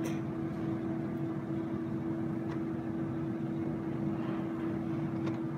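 Steady electric hum with one constant tone, from a ceiling fan running overhead.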